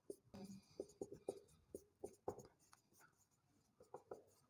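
Marker pen writing on a whiteboard: faint, short strokes and taps as letters and fraction lines are drawn.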